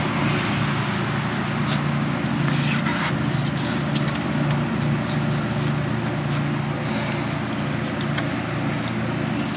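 A steady low machine hum with scattered light clicks as the carburetor's throttle linkage is worked by hand; the throttle is binding.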